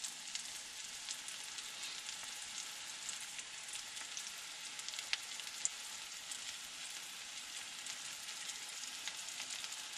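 Flour-coated liver pieces frying in butter in a cast iron skillet: a steady sizzle with scattered crackles, and two sharper pops a little after five seconds in.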